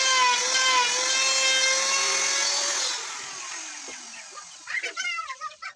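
Electric power tool motor running with a steady high whine that wavers slightly under load, then switched off about three seconds in and winding down in falling pitch. Chickens cluck faintly near the end.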